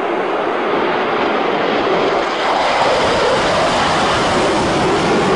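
Lockheed SR-71 Blackbird's twin Pratt & Whitney J58 jet engines in afterburner as it climbs steeply after takeoff: steady, loud jet noise that grows louder about two seconds in.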